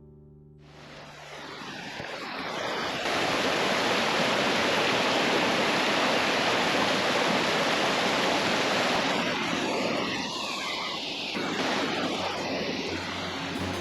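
Njupeskär waterfall: a steady rush of falling water that fades in over the first three seconds and then holds.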